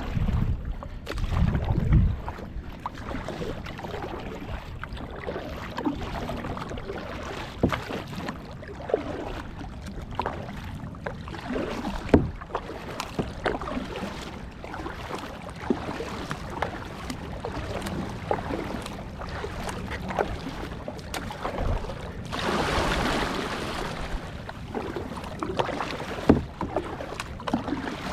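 Kayak paddling on open water: irregular paddle strokes and splashes over steady water noise against the hull, with a louder rush of water lasting about two seconds some 22 seconds in.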